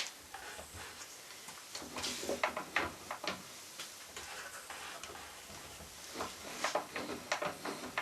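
Scattered light clicks and knocks of handling wood and parts on a workbench, in a few small clusters, with no motor running.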